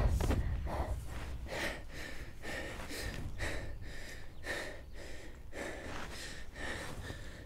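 A man breathing hard and fast in ragged gasps, about two breaths a second, as the rumble of an explosion dies away in the first second. A faint steady high tone rings under the breathing.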